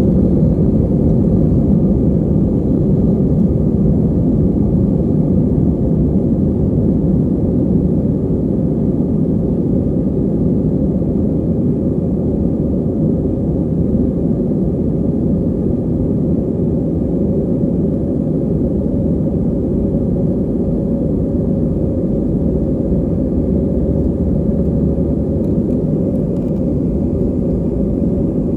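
Steady deep rumble of jet engines and airflow inside an Airbus A320's passenger cabin, easing slightly after the first several seconds.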